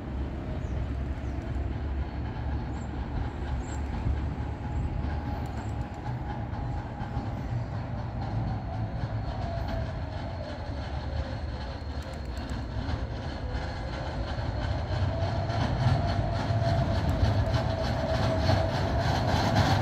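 Electric low-floor tram approaching along street tracks: a steady low rumble with a motor whine that dips and then rises in pitch, growing louder over the last few seconds.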